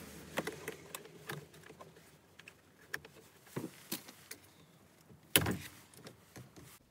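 Small screwdriver prying at the airbag's spring clip behind a Volkswagen Mk7 steering wheel: scattered light clicks, scrapes and knocks, with one louder knock about five and a half seconds in.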